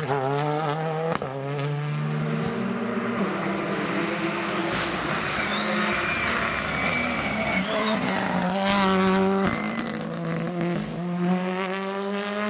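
Rally cars, a Renault Clio and a Ford Fiesta, driven hard along a tarmac stage: engines revving up and dropping back through the gear changes, with some tyre squeal.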